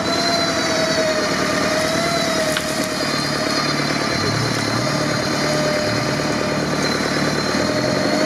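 Modified off-road buggy working through deep mud: its engine runs under load, changing pitch in steps, with a steady high whine over it.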